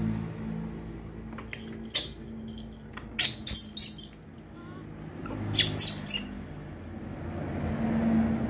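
Baby monkeys giving short high-pitched squeaks: three quick ones about three seconds in and three more about two seconds later, over a low steady hum.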